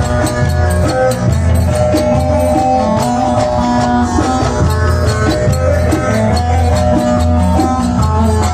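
Instrumental break of Turkish folk music: plucked strings over a steady bass line, with a quick clacking percussion beat from wooden spoons (kaşık) and zils.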